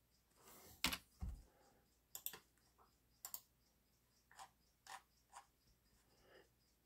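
A few faint, scattered clicks and taps from a laptop keyboard and touchpad, irregularly spaced, the loudest about a second in.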